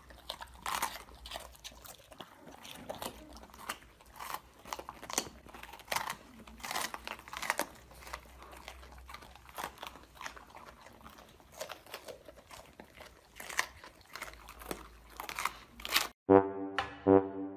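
Two golden retrievers, an adult and a puppy, crunching and chewing raw green bell peppers: irregular crisp bites and crunches. Near the end, brass music starts.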